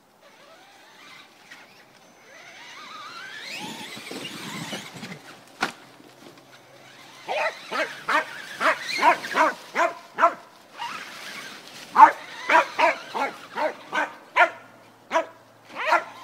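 A dog barking rapidly and repeatedly, about two barks a second, from about seven seconds in. Before that comes a rising whine as the RC truck's Castle sensored 2200 brushless electric motor speeds up.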